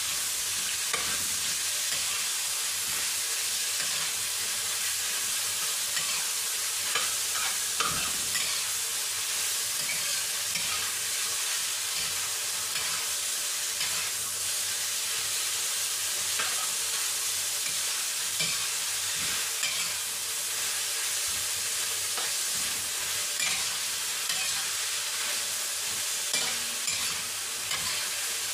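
Sliced onion, tomato and bell pepper sizzling in hot oil in a steel wok as they are stir-fried, with a spatula scraping and knocking against the pan now and then.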